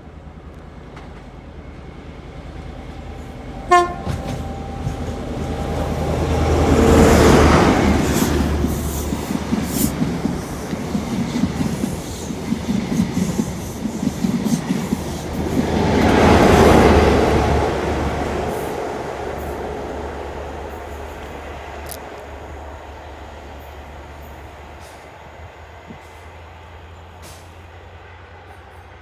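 A short horn blast about four seconds in, then a train passes through with a loud rumble. The wheels clatter over the rail joints between two loudest moments, about seven and sixteen seconds in, before the sound fades away.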